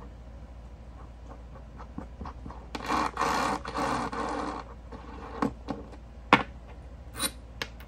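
Small metal clicks and a scraping rustle of about two seconds as fidget spinner bearings and buttons are pushed in and out of the spinner body by hand. A few sharper clicks follow, the loudest a little past the middle.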